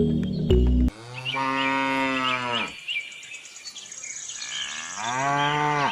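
A cow mooing twice: one long moo about a second in and another near the end, each sagging in pitch as it fades, with birds chirping in between. Background music stops just before the first moo.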